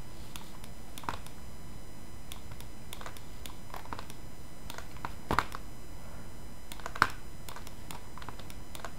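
Scattered clicks of a computer mouse and keyboard, the two loudest about five and seven seconds in, over a steady faint hiss.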